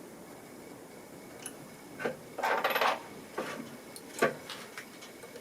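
Small metal tools and parts clicking and clattering during phone disassembly: a short rattle about two and a half seconds in, then several sharp clicks, the loudest just past four seconds.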